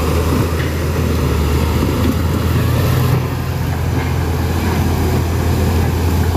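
JCB crawler excavator's diesel engine running steadily under load as the machine travels on its tracks.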